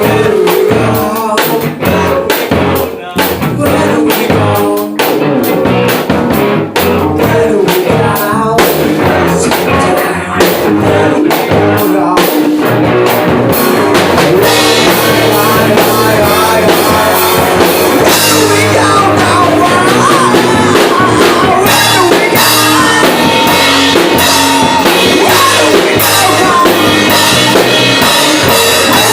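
A rock band rehearsing: drum kit and electric guitar, with sharp separate drum hits at first, then the full band comes in with crashing cymbals about halfway through and a singing voice over the top.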